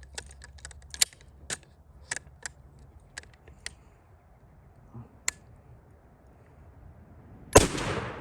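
A run of sharp clicks and taps, then about seven and a half seconds in a single shotgun blast with a short echoing tail: a Mossberg 500 youth-model 20 gauge firing a turkey load.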